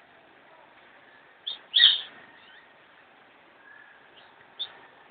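Lovebirds chirping in short, sharp calls: two close together about a second and a half in, the loudest, then a few fainter chirps near the end.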